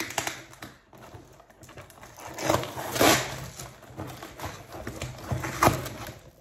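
A cardboard shipping box being torn open by hand, with packing tape and cardboard ripping in several noisy, irregular tears. The loudest tear comes about three seconds in, and a shorter sharp one comes near the end.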